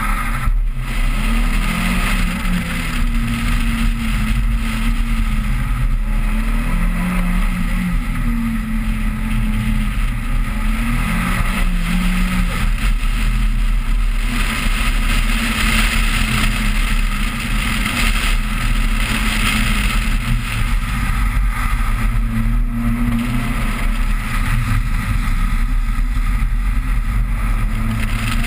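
2000 Toyota Celica GT's four-cylinder engine revving up and down as it is driven hard through an autocross course, heard from outside the car. Under it are a steady deep wind rumble on the microphone and the hiss of tyres on wet pavement.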